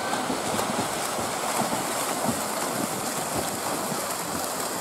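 Pool water splashing and churning as several water polo players swim hard, heard as a steady noise with small irregular splashes through it.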